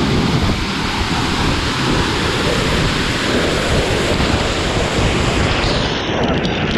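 Heavy waterfall water pouring loudly onto and around the camera as it goes through the falling water, with the spray buffeting the microphone. The hiss turns duller about six seconds in.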